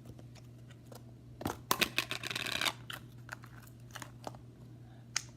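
Clicks and a short scraping rattle of a plastic slime container being handled and opened, a bit under a second long about two seconds in.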